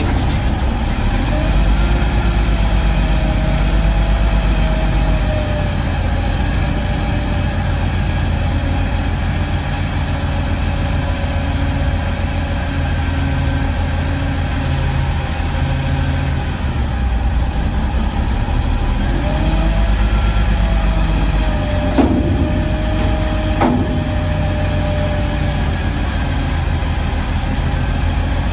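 Peterbilt front-loader garbage truck with a Maxon body, its diesel engine idling steadily while the hydraulic arms work a dumpster. A hydraulic whine rises and falls twice, and two loud metal bangs come about a second and a half apart a little past twenty seconds in.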